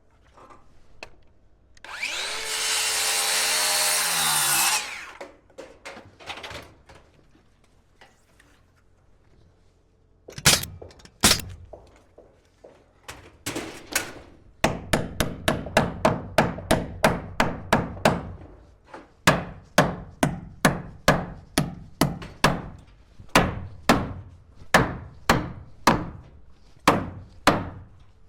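A circular saw cuts for about three seconds and winds down with a falling pitch. From about ten seconds in, a hammer drives nails into framing lumber: quick runs of blows at about three a second, then steadier strikes about one a second.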